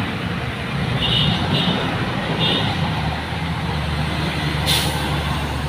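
Heavy diesel trucks' engines drone steadily as they labour up a steep hill, with a loaded cargo truck pulling slowly in low gear. A short hiss is heard just before the end.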